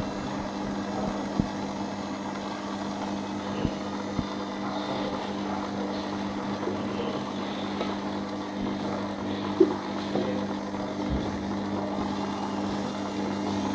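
Laboratory bench mixer's electric motor running steadily with a constant hum, its paddle turning through a bowl of mortar paste, with a few sharp clicks.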